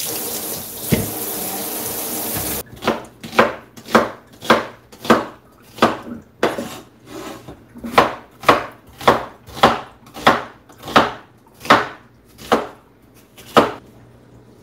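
Tap water running for the first few seconds, then stopping abruptly. Then a kitchen knife chopping onion on a wooden cutting board in steady strokes, just under two a second, which stop near the end.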